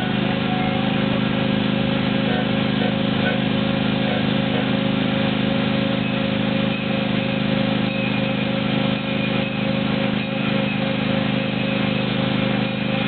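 Steady engine and running noise of a ride-on train, heard while riding.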